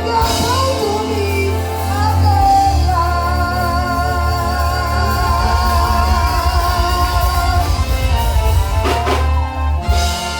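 Live band music played loud through a PA: a singer holds long, wavering notes over a steady bass line, with a few sharp drum hits near the end.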